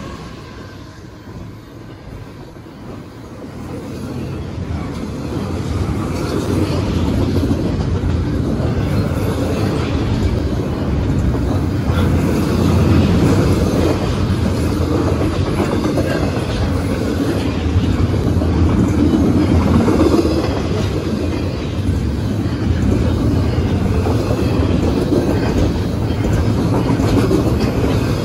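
Double-stack container well cars of a freight train rolling past, a steady rumble of wheels on rail that grows louder a few seconds in and then holds.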